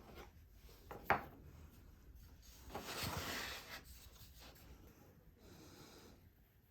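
Wood being handled by hand: a sharp knock about a second in, then a scraping rub lasting about a second.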